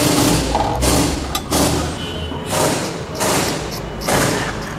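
Fuel injectors being scrubbed with a steel wire brush to clear carbon deposits, in a series of scratchy strokes a little under one a second, over a low steady hum.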